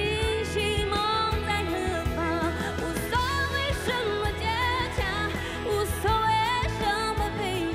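A woman singing a Mandarin pop song with vibrato into a microphone, over a band with steady bass and a drum beat.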